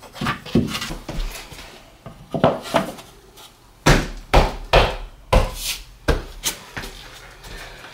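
Laminate flooring boards knocking and clattering as they are handled and fitted into place: a series of sharp wooden knocks, a few in the first seconds, then a quicker run of about seven between roughly 4 and 6.5 seconds in.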